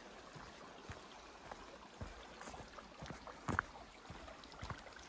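Footsteps scuffing and thudding irregularly on a dirt forest trail, the loudest about three and a half seconds in, over the steady rush of a small creek flowing over rocks.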